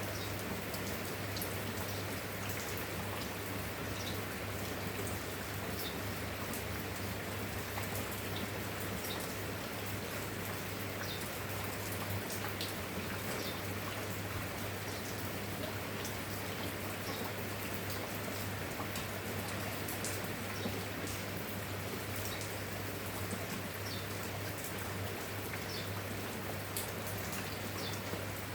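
Steady rain falling, with many single drops ticking and pattering throughout, over a constant low hum.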